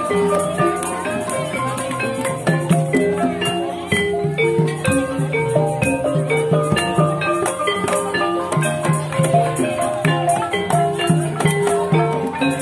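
Live Javanese gamelan played acoustically with no singer: bronze kettle gongs and metallophones ring in a dense, fast-repeating pattern over regular kendang drum strokes.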